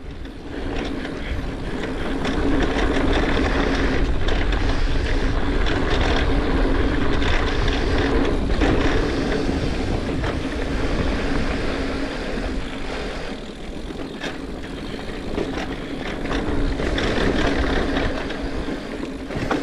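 Mountain bike ridden on a dirt trail, heard from a helmet-mounted camera: tyre noise and frame rattle with a few knocks over bumps, and wind rumbling on the microphone.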